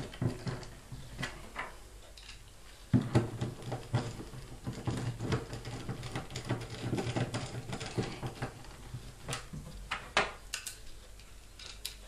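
Screwdriver driving screws back into the drum cross-piece hub of a top-loading washing machine: irregular small metal clicks and scrapes.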